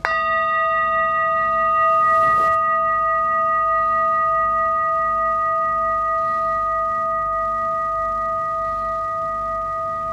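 Large brass singing bowl struck once with a mallet, then ringing on in several clear, steady tones that fade only slowly, with a slow pulsing beat beneath. A brief rustle comes about two seconds in.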